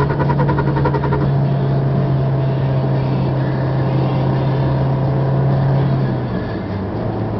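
Fiat Bravo's engine droning steadily with tyre and road noise, heard inside the cabin while cruising on a highway. About six seconds in, the engine note drops a little lower and quieter.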